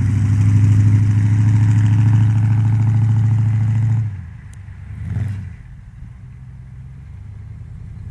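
Old Chevrolet Blazer's engine pulling steadily under throttle as the truck drives off-road, a loud low drone. About four seconds in it drops off sharply to a much quieter running note, swells briefly a second later, then runs on quietly.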